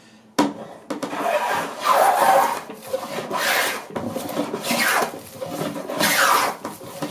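Vintage Record No. 6 fore plane with its original iron taking thick shavings off a softwood board, about four full-length strokes each rising and falling as the blade cuts through. A light knock sounds just before the first stroke.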